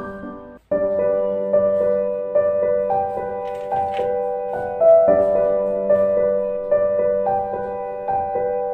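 Background music played on a piano-like keyboard, a gentle run of evenly spaced notes. It cuts out completely for a moment just under a second in, then starts again.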